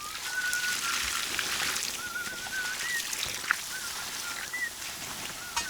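A person whistling a slow, wavering tune over a steady hiss, with a sharp click about three and a half seconds in.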